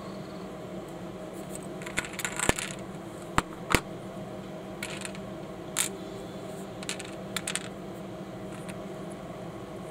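Lego-compatible Panlos plastic bricks clicking as small pieces are handled and pressed together: a handful of short, sharp clicks, the two loudest about a third of the way through.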